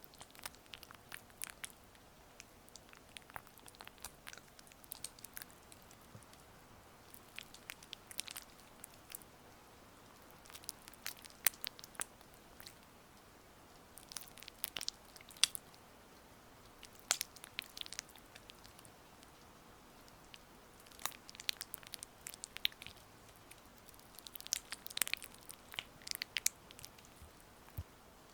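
Gua sha stone working over oiled skin close to the microphone, making clusters of small sticky, crackly clicks that come and go irregularly with short pauses between strokes.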